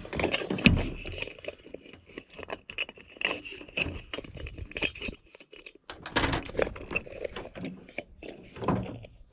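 Irregular light clicks and metallic rattles as a heat lamp fixture is handled and its loose socket is worked tight.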